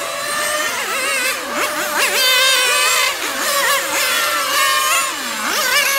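Several 1/8-scale nitro RC racing car engines revving high and overlapping, their pitch rising and falling over and over as the cars lap the track.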